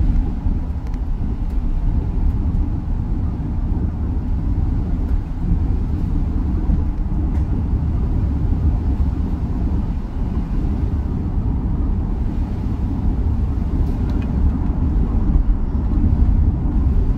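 Steady engine and road rumble inside the cab of a U-Haul cargo van on the move.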